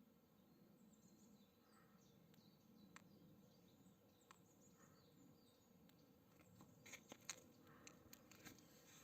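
Near silence: faint outdoor ambience with faint high chirps and a few soft clicks, the clearest ones about seven seconds in.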